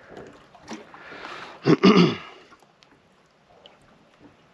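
A short, loud non-speech vocal sound from a man, falling in pitch, about two seconds in.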